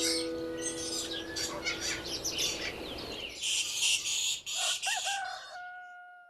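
The last chord of a viola caipira fades away. Then come farmyard sounds: birds chirping, and near the end a rooster crowing, one bending call that cuts off abruptly.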